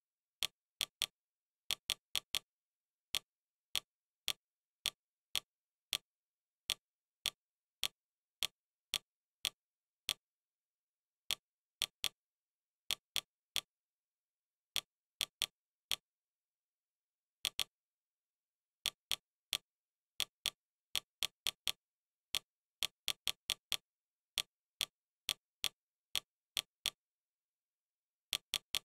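Interface navigation clicks of a streaming-TV menu: short, sharp ticks at irregular intervals, sometimes single and sometimes in quick runs of three to five, as the focus is moved through the menu, with dead silence between them.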